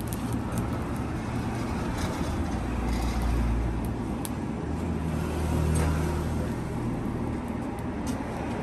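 Blower forcing air into a charcoal forge: a steady low rumble of air and fire that swells twice, with small crackles from the burning charcoal.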